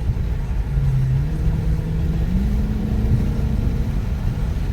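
Dodge Challenger Scat Pack's 6.4-litre HEMI V8 pulling under acceleration, heard from inside the cabin over low road rumble. Its engine note climbs in pitch in steps, about a second in and again past two seconds, then holds.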